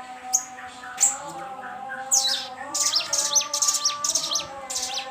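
Crested jay (sogon) calling: two sharp high chirps in the first second, then a fast run of high, falling chirps from about two seconds in. It is a lure call used to provoke a caged sogon into calling.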